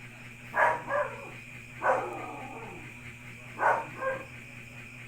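A dog barking: short barks, mostly in quick pairs, repeated every second or two over a steady low background hum.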